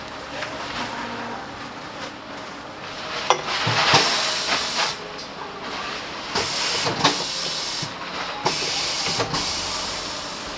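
Compressed air hissing from a shop air line in several separate bursts, each a second or so long, with a few sharp clicks and knocks between them, during work on a scooter's front tyre.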